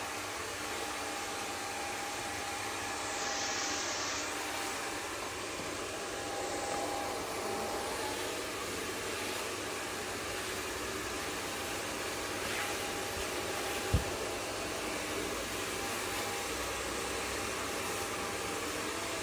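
Handheld hair dryer blowing steadily, an even rushing hiss with a faint motor whine. A single short knock about fourteen seconds in.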